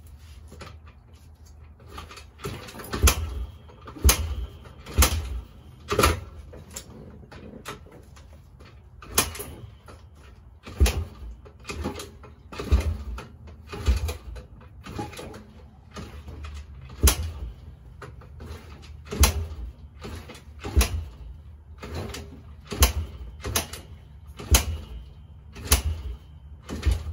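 Yamaha TTR-125L's single-cylinder four-stroke being kickstarted over and over, about twenty kicks, each a thump spaced a second or two apart. The engine never catches: the cold-blooded bike won't start.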